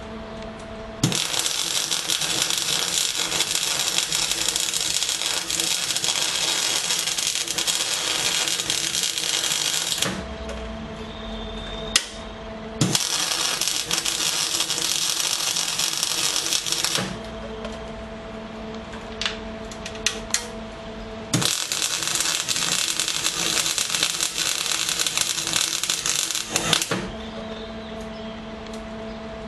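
Aluminium MIG welding with a spool gun: three runs of steady arc crackle and hiss, about nine, four and five seconds long, each starting and stopping abruptly. Between runs there is a steady hum with a few sharp clicks.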